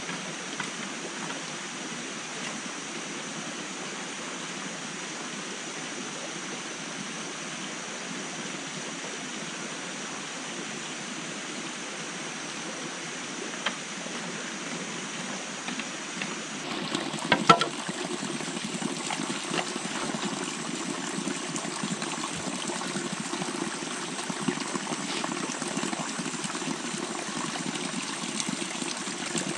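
Steady running water of a shallow stream. About two-thirds of the way through it gives way to a few sharp knocks, then light clicking as bamboo poles are handled.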